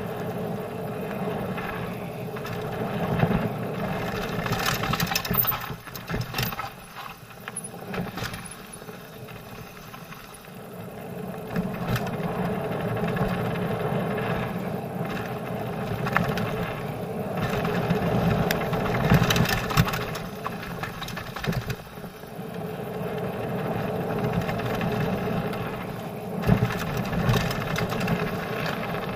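Mountain bike rolling fast down a loose gravel trail: steady crunching tyre rumble with chain and frame rattle, swelling and easing with speed, and several sharp knocks from stones and bumps.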